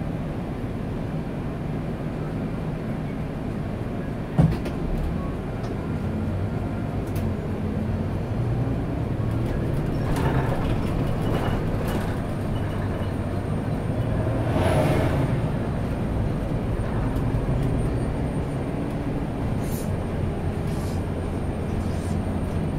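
Volvo 8900 city bus (B8RLE chassis) under way, heard from the front of the passenger cabin: steady diesel engine hum and road noise. A single sharp knock comes about four seconds in, and the noise swells briefly around ten and fifteen seconds in.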